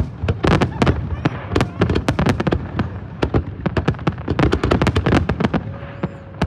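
Aerial fireworks display: rapid, overlapping bangs and crackles of bursting shells, easing into a brief lull near the end.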